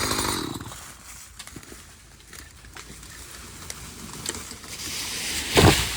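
Chainsaw noise dying away, then scattered sharp cracks of wood giving way and a single heavy thud near the end as the felled tree comes down.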